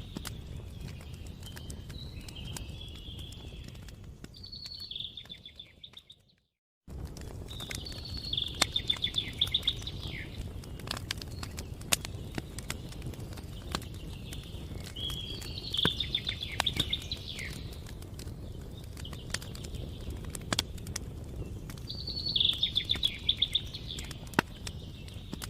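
Campfire crackling with scattered sharp pops over a low steady rumble, while a songbird repeats a short trilled phrase every few seconds. The sound fades out to silence for about a second around six seconds in, then returns abruptly.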